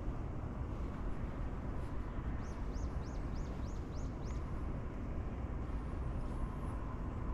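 A steady low rumble of outdoor background noise, with a small bird giving a quick run of seven high, arched chirps about two and a half seconds in.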